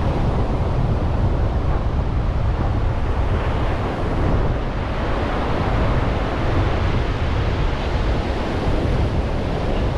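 Ocean surf washing up a sandy beach, with wind buffeting the microphone as a steady low rumble.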